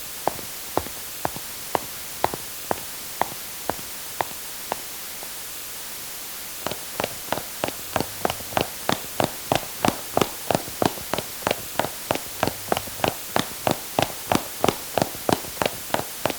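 Footsteps over a steady hiss: walking at about two steps a second, which stops about five seconds in. After a short pause, faster steps at about four a second, a run, continue to the end.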